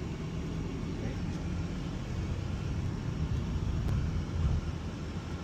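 Taxi's engine and tyre noise heard from inside the cabin while driving: a steady low rumble with no sudden events.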